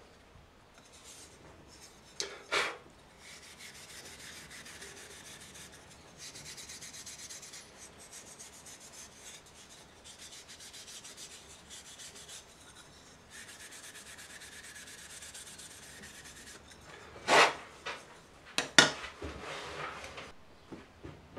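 Wire wool rubbing over a spalted taraire wooden coaster, a scratchy hiss in two long stretches, rubbing down the first coat of oil before the next coat goes on. A few sharp knocks, the loudest sounds, come just before the rubbing and after it.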